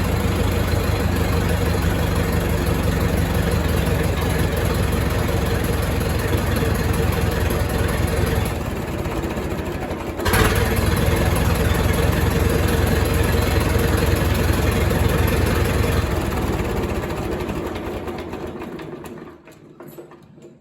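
The four-cylinder engine of a 1928 Farmall Regular tractor runs steadily with an even firing beat. About eight and a half seconds in it drops a little, then comes back up sharply at about ten seconds. It fades away over the last few seconds.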